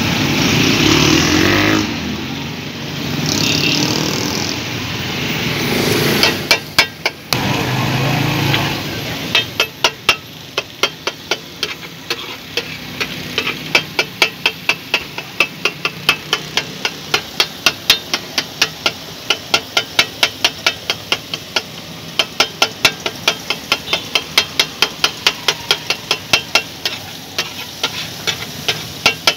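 Steel spatula chopping on a large iron tawa griddle, sharp metal clacks about two to three a second, as liver and masala are chopped and fried. The chopping starts about six seconds in, after a stretch of steady street-traffic rumble.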